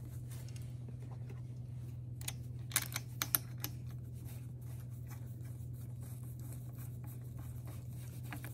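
A few light metallic clicks and taps, about two to three and a half seconds in, as the metal holder block of a hot-stamping machine is fitted into place by hand. A steady low hum runs underneath.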